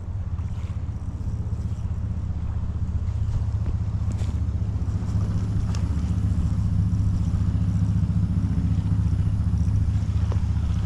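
Wind buffeting the microphone: a steady low rumble, growing a little stronger after a few seconds.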